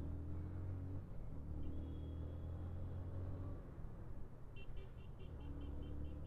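Motorcycle engine running as the bike rides through traffic, its note pulling steadily and then dropping away twice as the throttle eases. About four and a half seconds in, a quick run of short high beeps, about six a second, sounds over it.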